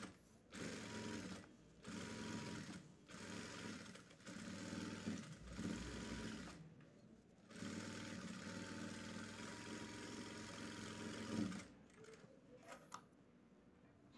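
Electric sewing machine stitching a trouser-leg hem in short runs, stopping and starting about five times. The last run lasts about four seconds and stops near the end.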